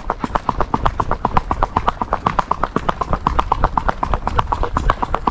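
A colt's hooves striking asphalt in a quick, even gait: a rapid, regular run of hoofbeats, the gait's "musiquita".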